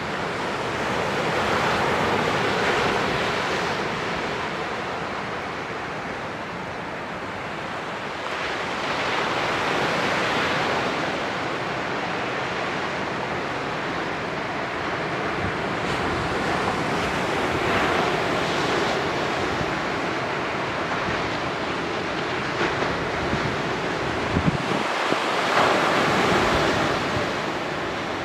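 Small ocean waves breaking and washing up a sandy beach, the surf hiss swelling and fading about every eight seconds. Some wind rumbles on the microphone in gusts near the end.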